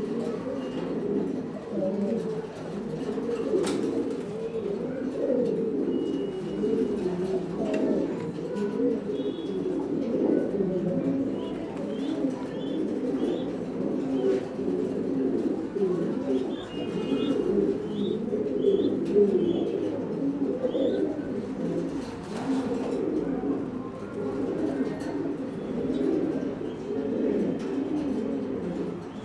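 Domestic pigeons cooing without a break, many low coos overlapping, while a puffed-up male pigeon courts with his tail fanned. Short high chirps come through faintly in the middle.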